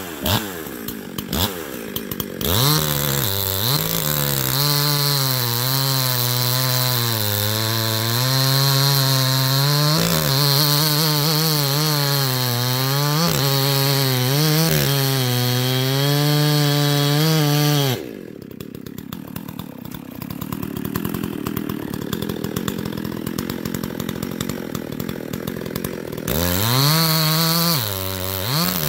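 Husqvarna 254XP two-stroke chainsaw, muffler-modded, running at full throttle through an ash log, its pitch wavering as the chain loads in the cut. About two-thirds of the way in the throttle is let off and the engine drops to a much quieter low-speed run, then revs up again near the end.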